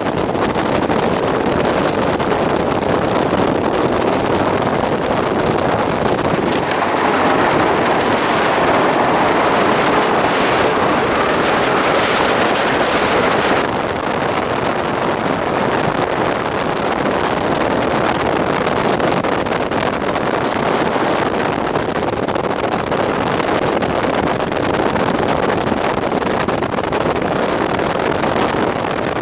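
Steady, loud rushing noise of a storm-chase vehicle on the move through wind and rain. It swells a little for several seconds about a quarter of the way in.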